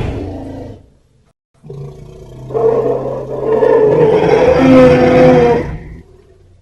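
Designed monster roar sound effect for the Red Death dragon. The tail of one roar fades out in the first second. After a short pause a long, layered roar with a low held drone starts, swells about a second later, and dies away near the end.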